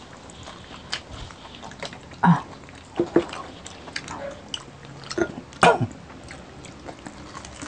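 Close-miked eating sounds of people biting and chewing crispy deep-fried pork knuckle (crispy pata), in short separate bursts a second or so apart.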